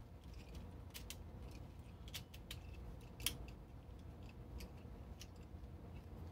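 Faint scattered small clicks and ticks, the sharpest a little past three seconds in, over a low steady hum.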